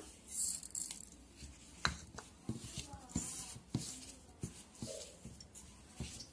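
Hand mixing rice flour and black sesame seeds for murukku dough in a steel bowl: soft rustles of the flour, with a string of light clicks and taps against the bowl.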